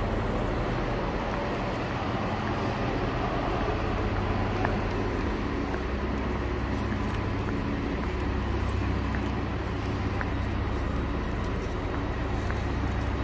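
Steady low rumble and hum of a large railway station under its train-shed roof, with diesel railcars idling at the platforms.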